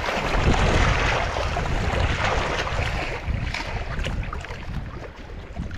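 Strong wind buffeting the microphone with a low rumble, over the wash of wind-driven waves on a lake.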